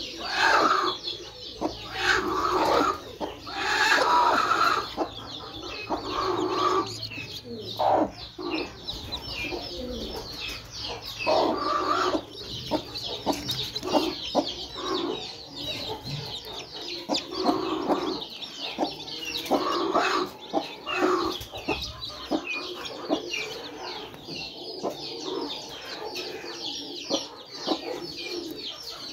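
Newly hatched chicks peeping constantly in short high chirps, with the brooding mother hen clucking in louder, lower bursts every few seconds.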